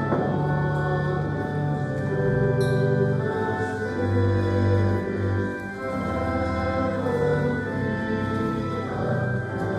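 A slow hymn: voices singing held notes over church organ accompaniment, the chords changing about once a second.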